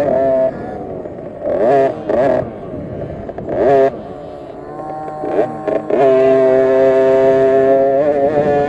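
KTM SX50 50cc two-stroke minibike engine heard on board, revving up and down with the throttle. It runs at high revs at the start, drops back with quick rises about two and four seconds in, then holds steady at high revs for the last few seconds.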